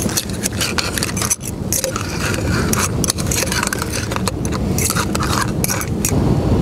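A metal utensil stirring cockles in a small camping pot, with many short clinks and scrapes against the pot and shells. Under it runs a steady low rush of wind on the microphone.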